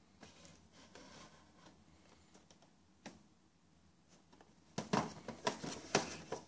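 A cardboard toy box with a clear plastic window being handled and turned over: scattered light rustles and clicks, then a denser run of louder knocks and crinkles about five seconds in.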